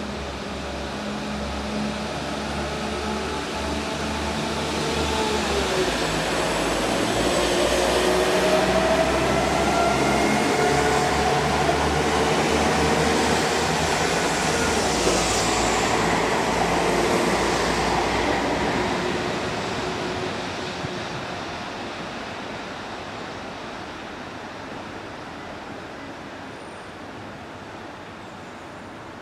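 West Midlands Railway Class 172 diesel multiple unit passing: engine and transmission running with a rising whine, growing louder and then fading away as the train goes by.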